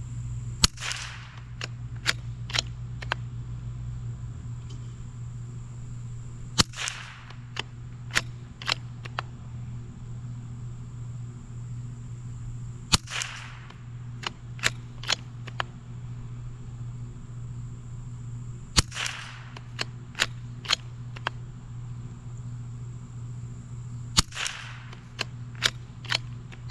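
Five shots from a .22 LR bolt-action rimfire rifle, about six seconds apart. Each shot has a brief ringing tail and is followed by about four quick clicks as the bolt is worked to eject the spent case and chamber the next round.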